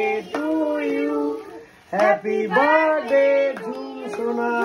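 Children and women singing a birthday song together, in held, drawn-out sung phrases.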